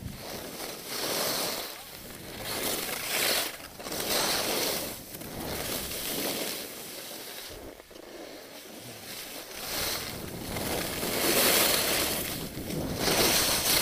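Skis scraping and carving over packed snow on a downhill run, the rushing hiss swelling and fading with each turn about every one to two seconds, with wind buffeting the microphone.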